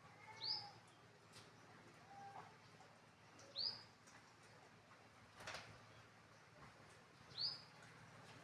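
A bird chirping: three short, identical high chirps, each with a quick upward flick, spaced about three and a half seconds apart.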